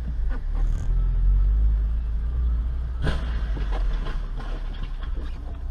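Steady low rumble of a car driving, recorded by a dash cam, with one sharp knock about three seconds in.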